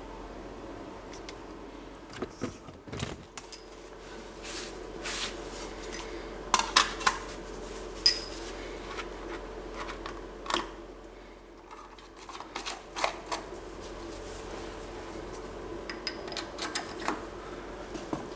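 Metal parts being handled and set down on a T-slotted cast-iron machine table: scattered clinks and knocks, a few ringing briefly, over a steady hum.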